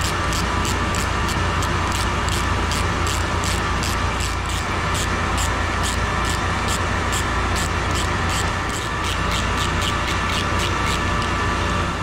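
Steady machinery drone of running pumps in the chiller-plant pump room. Over it, a ratcheting wrench clicks evenly, about three clicks a second, as the strainer cover bolts are tightened. The clicking stops about a second before the end.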